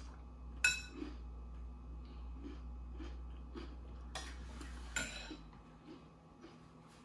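Metal spoon on a glass cereal bowl: a sharp clink about half a second in, a short scrape around four seconds, and another clink about a second later, with soft chewing of crunchy cereal between.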